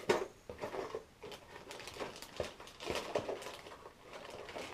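Hands rummaging through a cardboard shipping box of packaged fishing lures: irregular rustling and crinkling with many small clicks and knocks.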